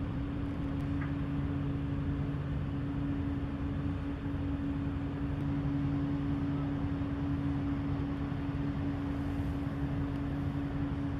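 Inland cargo ship's diesel engine running with a steady drone: a constant hum over a broad rumble, unchanging throughout.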